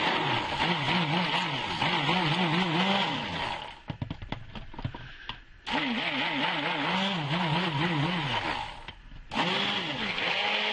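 Stick blender running in soap batter, its motor pitch wavering rapidly up and down as it mixes. It runs in three bursts, stopping briefly about four seconds in and again about nine seconds in.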